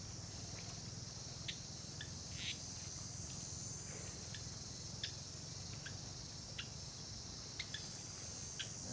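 Steady high-pitched chorus of insects, with short sharp ticks scattered through it once or twice a second and a low steady rumble underneath.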